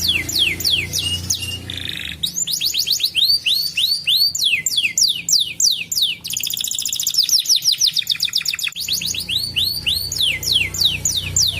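Domestic canary singing a fast song of repeated notes: rows of quick downward-sweeping whistles and rapid trills, each run switching to a new pattern after a second or two. A low steady hum sits underneath at the start and again near the end.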